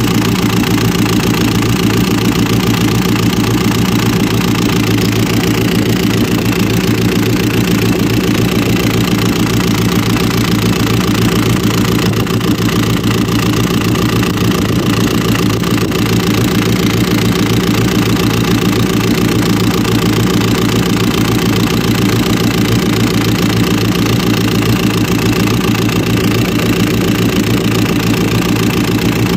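Hino diesel truck engine idling steadily, with a rapid, even knock running through it.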